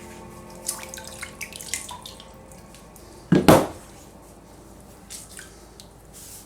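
A few light clicks, then a brief, loud splash of water about three and a half seconds in, with scattered drips after it.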